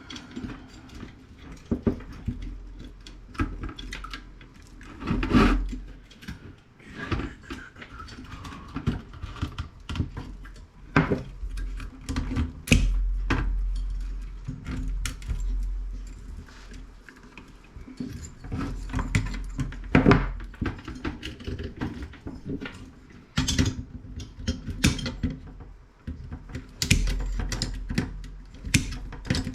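Irregular clatter, clicks and knocks of metal and plastic parts and tools being handled while a CRT monitor is taken apart for scrap, with a low rumble now and then.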